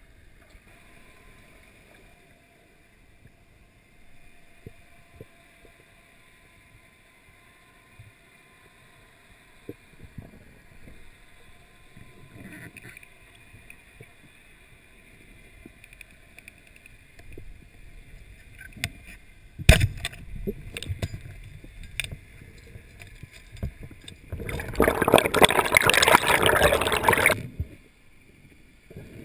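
Heard underwater: a faint water hiss with scattered light ticks, then a sharp snap about 20 seconds in as a speargun is fired at a carp, followed by a few smaller clicks. Near the end comes about two and a half seconds of loud rushing water noise.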